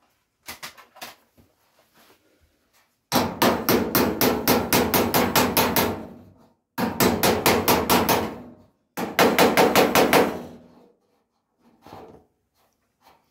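Hammer tapping down the flange of a Ford Escort Mk1's sheet-steel wing: a few light taps, then three quick runs of ringing blows, about five a second, each run trailing off into softer strokes.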